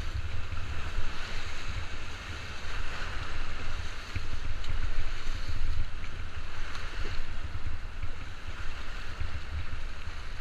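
River water rushing and splashing around a paddled whitewater raft, with wind buffeting the action camera's microphone throughout.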